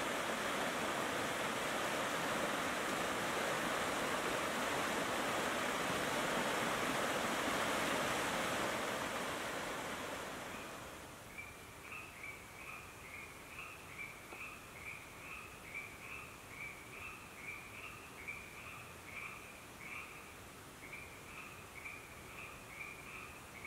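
A rushing forest stream, fading out about ten seconds in. It gives way to a night ambience of frogs calling in a steady repeating rhythm, about one and a half calls a second.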